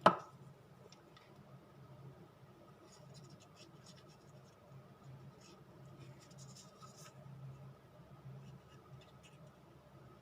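A sharp click right at the start, then faint scratching and rubbing of glue being spread on paper, busier in the middle, over a low steady hum.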